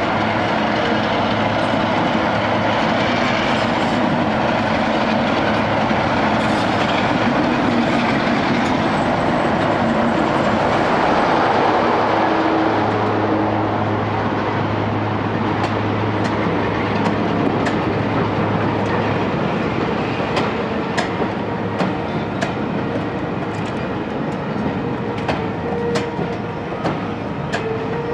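Diesel locomotive hauling passenger coaches in along the platform, its engine running with a steady low note. From about halfway through, the coach wheels click sharply over the rail joints as the carriages roll past.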